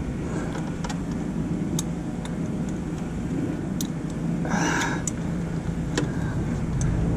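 Steady low rumble and hum, over which hand tools and a socket tap and click lightly against engine-bay metal while bolts on an AC compressor are worked at. There are a few isolated clicks and a short scraping rasp about four and a half seconds in.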